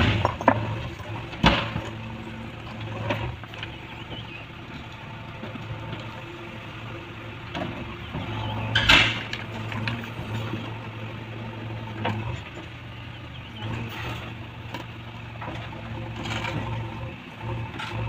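JCB 3DX backhoe loader's diesel engine running steadily as the backhoe works. Scattered knocks and clatter of rock and steel break through it, the loudest about nine seconds in.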